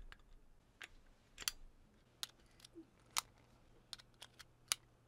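Metal XLR cable connectors being handled and plugged together, giving about ten light, irregular clicks and taps.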